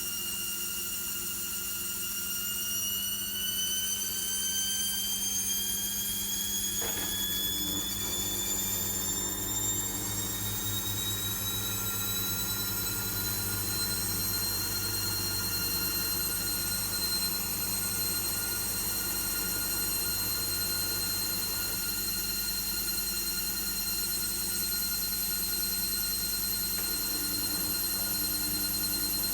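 Logik L712WM23 washing machine's motor whining as the drum speeds up: the whine rises in pitch over the first dozen seconds or so, then holds steady at speed over a low hum. A single click about seven seconds in.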